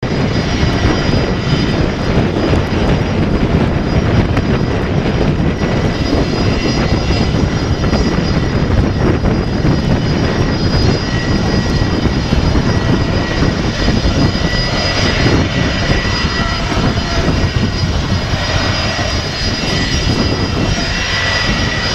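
Rolls-Royce Tay 611-8C turbofans of a Gulfstream G450 business jet running at low taxi thrust: a steady, loud jet rumble with a thin high whine over it.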